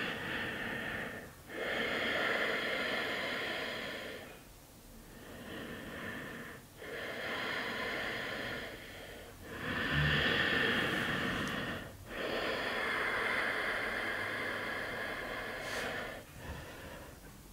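A woman's slow, deep breathing close to a clip-on microphone: long, audible inhales and exhales, each lasting two to four seconds, about three full breaths in all.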